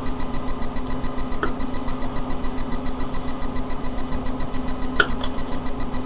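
Steady mechanical hum with a fast, even pulsing, and two small clicks: a faint one about a second and a half in and a sharper one about five seconds in.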